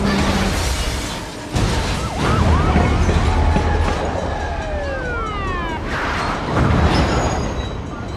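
Police car sirens wailing over the low, steady rumble of a passing freight train, with a sudden loud hit about a second and a half in.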